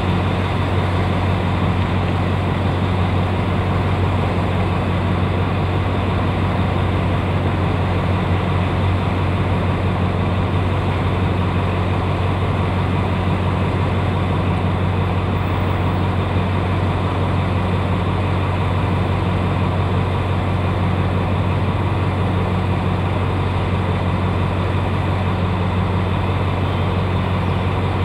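Alsthom AHK-class diesel locomotive idling at the head of a passenger train, a steady deep engine hum with no change in pitch or level.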